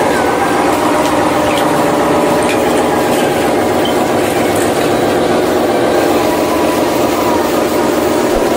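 Steady truck-engine drone with several held tones, from a radio-controlled dump truck crawling through shallow water.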